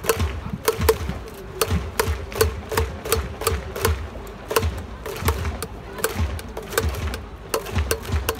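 Rhythmic percussion: sharp clacks, each paired with a low thud, repeating about two to three times a second, like stadium cheering percussion.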